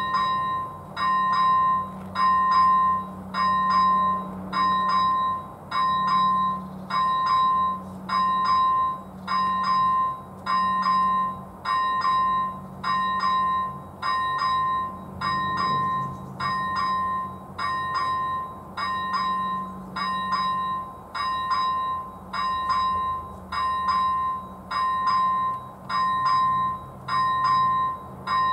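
Electric warning bell (ZV-01) of an AŽD 71 level crossing ringing in regular bursts of rapid strikes, about one burst a second. It is the crossing's warning that a train is approaching.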